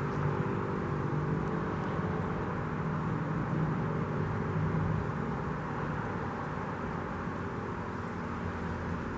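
Sterling Model M electromechanical fire siren (8/8 port rotor) sounding a low, steady, droning tone during its test.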